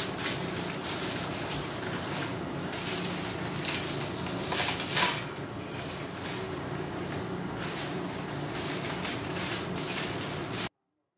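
Kitchen range-hood fan running steadily, with clatter and rustling as a pot and its lid are handled on the stove, loudest about five seconds in. The sound cuts off abruptly near the end.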